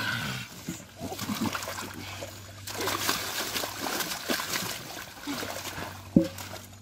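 Muddy water splashing and sloshing as a large fish is wrestled out of shallow mud by hand and thrashes, with a burst of wet splatter a few seconds in. A single sharp knock near the end.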